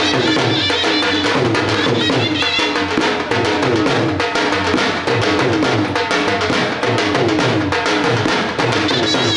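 Devotional mata bhajan music with fast, steady drumming on a dhol under a repeating melody line, without singing in this passage.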